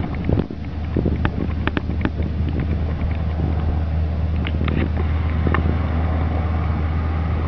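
A vehicle engine idling steadily as a low hum, with a few faint clicks over it.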